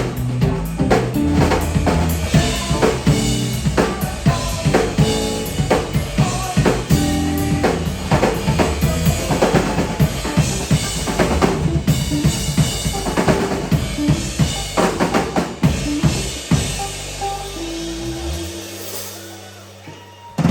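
Live band of drum kit, electric bass and electric guitar playing, with the drums loudest. About sixteen seconds in the drums stop and held bass and guitar notes ring on and fade as the song ends.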